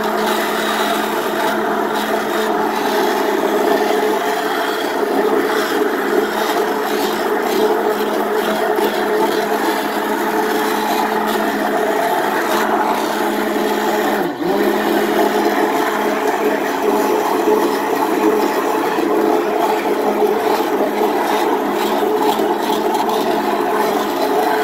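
Bella hand-held stick blender running steadily, its blade churning raw soap batter of oils and lye water in a ceramic crock-pot insert to emulsify it. Its level and pitch dip for a moment about halfway through, then it runs on.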